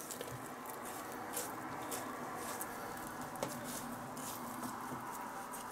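Faint scraping and small ticks of a kitchen knife cutting a raw chicken leg free of the carcass on a wooden board, over a low steady hum.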